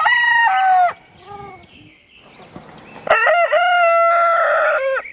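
Rooster crowing twice: a crow that ends about a second in, then a longer crow from about three seconds in, held for about two seconds.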